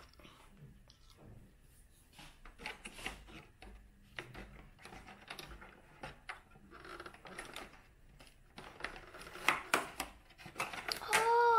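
Small plastic packaging crinkling and tiny plastic toy pieces clicking as a child's fingers dig out and open a small packet, in quick irregular bursts that grow busier toward the end. Just before the end a child starts singing a held note.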